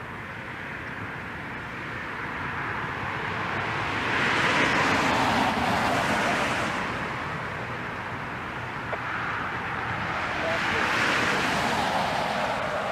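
Two cars passing on a road, each a rush of tyre noise that swells and fades: the first about four to seven seconds in, the second around eleven seconds.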